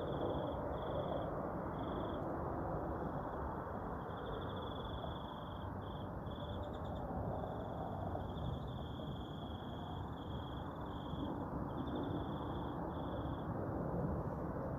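Crickets chirping in repeated trills and pulses, over a continuous low rumbling noise.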